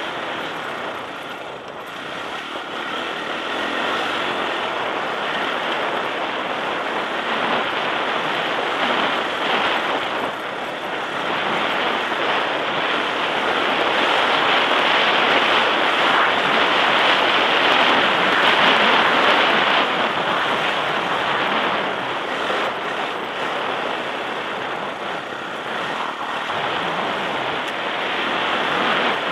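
Sherco enduro motorcycle ridden over a rough dirt and gravel trail: the engine running under load, heard as a dense rush mixed with wind noise and surging louder through the middle.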